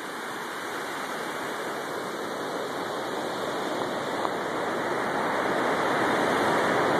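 Steady rush of water pouring over a dam spillway into the pool below, growing gradually louder.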